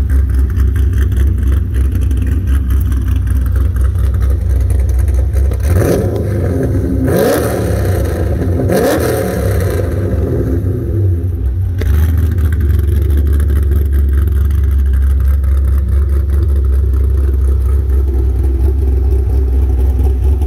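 2009 Pontiac G8 GXP's 6.2-litre LS3 V8, fitted with an F35 camshaft, BBK headers and a Magnaflow muffler, idling through its exhaust. It is revved a few times about six to nine seconds in, then settles back to a steady idle.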